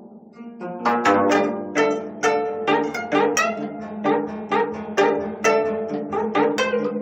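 25-string gayageum quartet playing: after a brief lull, a brisk run of sharp plucked notes starts under a second in, ringing over a held low note.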